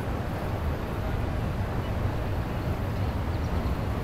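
Steady city street background noise, mostly a low traffic rumble.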